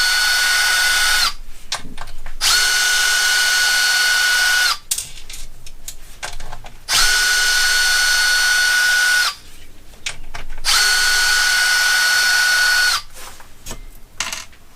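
Cordless drill/driver with a hex bit spinning out 2.5 mm bolts from an RC car chassis: four runs of a steady electric whine, each about two seconds, with handling clicks in between.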